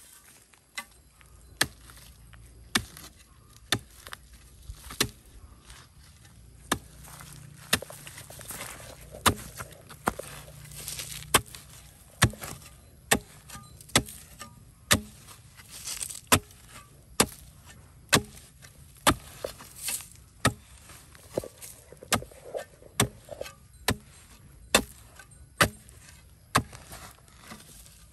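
Metal blade of a long-handled digging tool striking into dry, hard soil, digging a planting hole, about once a second, each stroke a sharp chop with a scrape of loosened earth.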